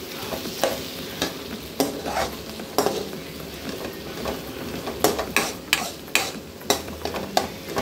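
A spatula scrapes and stirs cooked grated ridge gourd in a non-stick pan, in irregular strokes that come faster near the end, over a frying sizzle. The vegetable has just finished cooking in its own steam.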